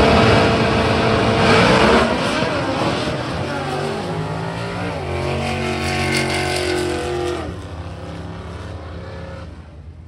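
Two drag-racing cars, a dragster and a door car, launching side by side at full throttle. The engine pitch rises through each gear and drops at each shift, and the sound fades as the cars run away down the strip.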